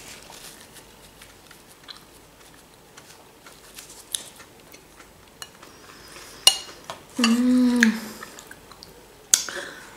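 Close-miked chewing of a soft Olivier-style salad, with small mouth and cutlery clicks. A sharp click comes about six and a half seconds in, followed by a short hummed "mm" lasting under a second.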